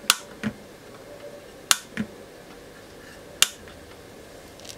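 Side cutters snipping the excess legs off a freshly soldered IGBT on a circuit board: three sharp snips about 1.7 seconds apart, each followed by a fainter click.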